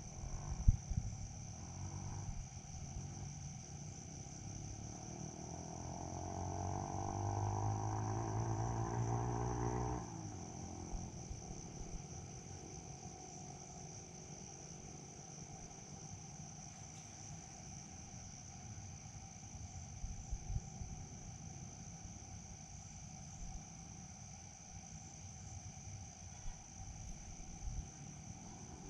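Crickets trilling steadily in one continuous high tone. Between about five and ten seconds in, a louder low hum rises slightly in pitch and cuts off abruptly.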